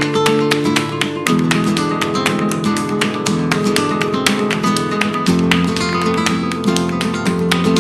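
Background music: fast flamenco-style acoustic guitar, rapidly plucked and strummed notes with chord changes.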